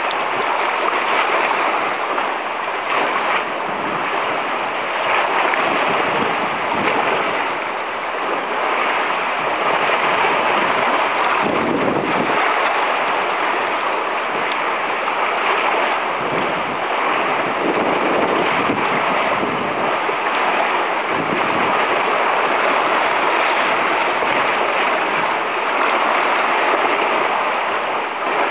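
Waves surging and churning among pilings: a steady, loud rush of splashing, foaming water that swells and eases a little.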